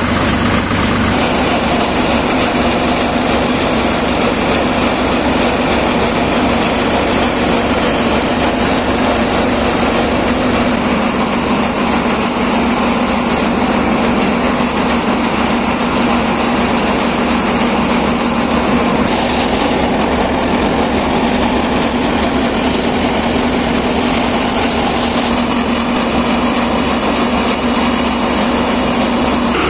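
Shakti Farm paddy thresher running steadily under load as paddy is fed into it, driven by a Sonalika DI 42 RX 42 HP tractor whose engine runs alongside it with a steady hum.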